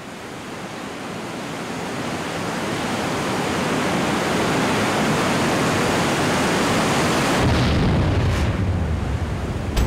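Rushing water roaring as it pours into a tunnel through opened floodgates. It swells steadily over the first few seconds, then holds, and a deeper rumble comes in near the end.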